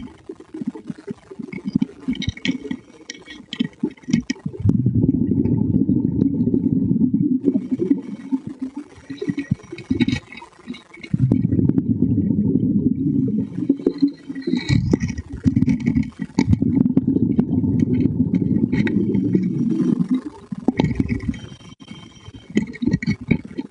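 Underwater rumble and bubbling picked up by a camera during a sea dive, in long loud muffled stretches. Between them come quieter passages of clicks and crackle.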